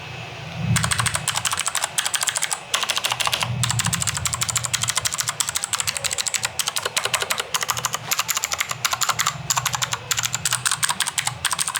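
Typing sound test on a Garuda GG68B mechanical keyboard with Gateron Blue clicky switches: fast, continuous clacking with the sharp click of each keystroke, starting just under a second in, with a brief pause before it carries on.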